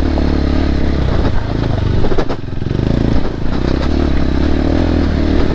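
Sport motorcycle engine running steadily while riding over a rough, stony trail, with a single sharp knock about two seconds in.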